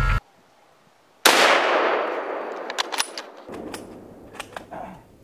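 A single deer-rifle shot about a second in, its echo dying away through the woods over a couple of seconds, followed by several sharp clicks.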